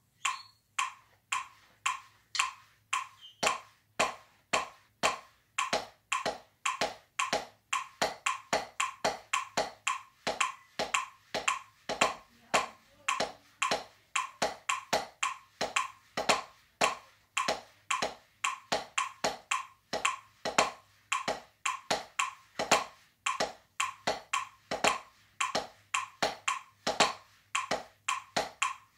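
Drumsticks striking a drum practice pad in a timing exercise. The sharp taps come in a steady pulse, with clusters of quicker strokes mixed in.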